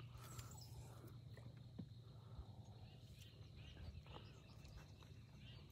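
Near silence: faint outdoor ambience with a steady low hum and a few faint chirps.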